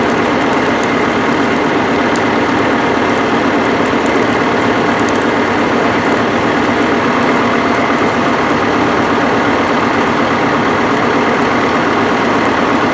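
Steady, unbroken drone of a heavy engine running.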